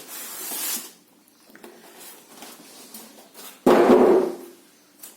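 Unpacking sounds: a brief rustling scrape of packaging, then quiet handling, then one loud thump a little over three and a half seconds in as an item is set down or knocked against the box.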